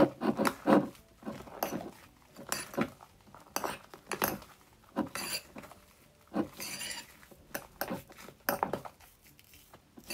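Metal spoon scraping and clinking against a ceramic bowl while stirring thick, sticky shaving-cream slime, in irregular strokes about once a second, working in more contact-lens solution to make it less sticky.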